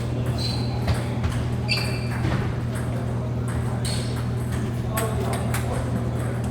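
Table tennis ball being hit in a rally: sharp, irregular clicks of the celluloid-type ball off paddles and table, over a steady low hum.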